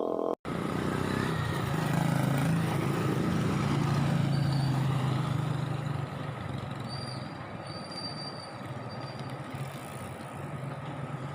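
A motor vehicle's engine hum over road noise, swelling for the first few seconds and then fading as it passes.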